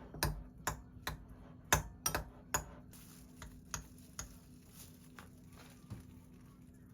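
A run of light, sharp taps and clicks, quick and irregular for about three seconds, then a few scattered ones.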